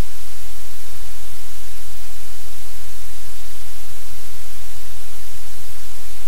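Loud, steady static hiss with a low electrical hum beneath it: noise on the audio feed rather than any sound from the room.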